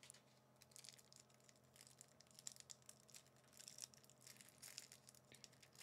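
Near silence with faint, scattered crinkling of a card pack's cellophane wrapping being handled, over a low steady room hum.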